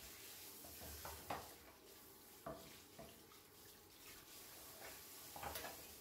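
Faint running tap water in a kitchen sink while dishes are washed by hand, with a few light knocks and clinks of utensils, the last a short cluster near the end.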